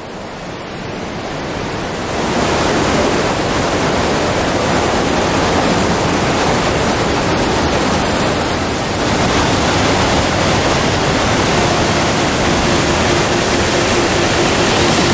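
Steady rushing of a mountain waterfall and the fast rapids of the creek below it, rising over the first two seconds and then holding even.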